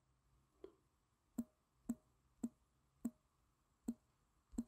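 Faint, sharp clicks, about seven of them at uneven spacing, roughly one every half second to a second.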